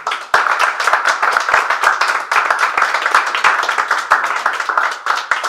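A small audience applauding: a dense run of hand claps that starts sharply just after the opening and thins out near the end.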